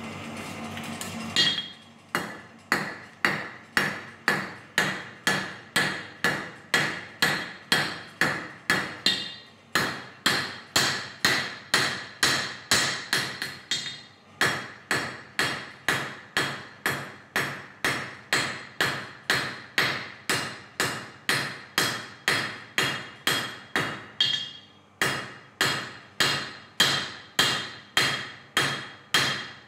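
Steady hum of a coal forge's blower, then, about a second and a half in, a hand hammer starts forging a hot steel knife blank on a small anvil. The blows are even, about two a second, each with a bright metallic ring, broken by a few short pauses.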